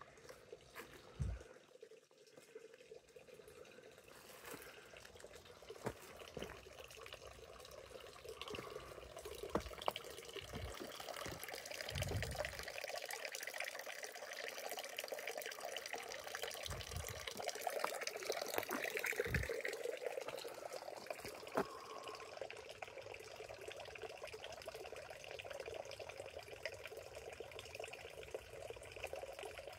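Water running and trickling into a stone fountain trough, a steady splashing that grows louder after the first few seconds. A few dull low thumps stand out over it.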